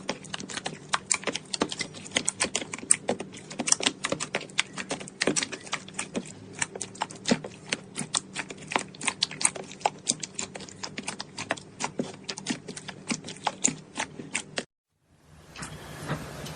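Slime being squeezed and worked, a dense, irregular stream of small crackling pops and clicks. It cuts off suddenly about a second and a half before the end, and a faint steady low hum comes in after.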